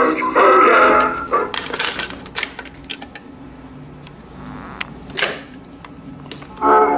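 Teddy Ruxpin's cassette playback of a song cuts off about a second in, followed by several seconds of plastic clicks and clatter as the cassette door in the bear's back is opened and the tape handled, with a brief rustle. Music from the tape starts again near the end.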